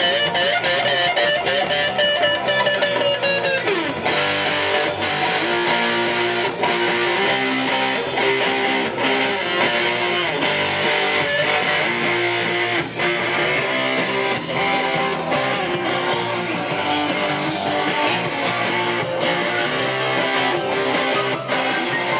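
Jackson electric guitar playing a lead line: held notes with wide vibrato, a downward pitch slide about four seconds in, then a fast repeating riff.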